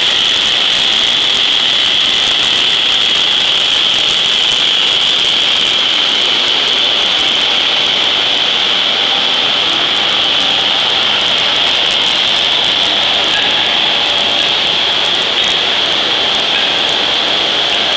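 Steady, loud hiss of forging-shop machinery with a shrill band high in the sound and no hammer blows.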